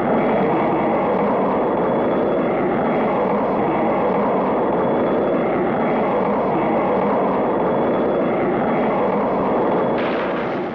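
Cartoon rocket thruster sound effect: a steady, even rushing burn with a faint high whistle on top and a slow wavering in it, starting abruptly and fading out near the end.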